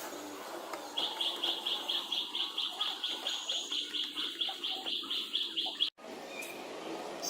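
A bird calling a rapid run of identical high notes, about five a second, that stops suddenly near the end.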